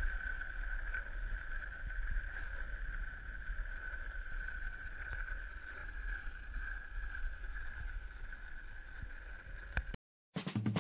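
Wind rumble on a moving microphone with rolling road noise and a steady high hum, as it travels along a paved street. It cuts to silence about ten seconds in, and music with a beat starts just before the end.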